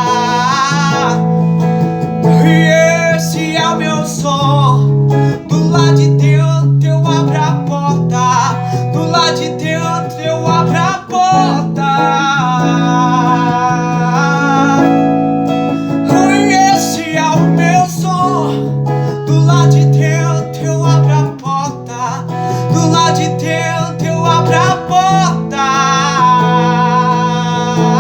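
A man singing a worship song, with a wavering vibrato on long held notes, over a strummed guitar.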